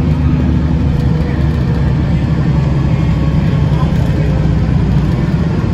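Bus cabin noise while the bus drives along: the engine running and tyre and road noise, steady and low.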